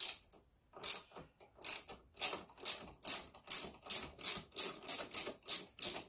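Hand ratchet wrench backing out a handlebar clamp bolt: a short burst of pawl clicks on each swing, about one a second at first, quickening to about three a second.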